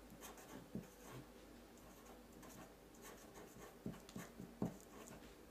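Marker pen writing on paper: faint scratching strokes, with a few soft taps about four seconds in.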